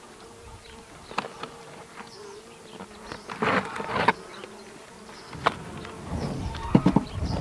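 Honeybees buzzing with a steady hum around an open hive, while a wooden comb frame is lifted and handled with scattered clicks and knocks. Near the end, rustling and knocks of handling grow louder as the cloth cover goes back over the frames.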